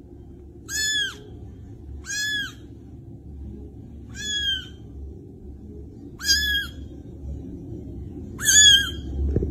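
A young kitten mewing five times: short, high-pitched mews about two seconds apart. A faint low hum runs underneath.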